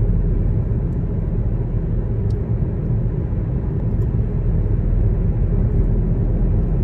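Steady low rumble of a car driving, heard from inside the cabin, with a couple of faint ticks.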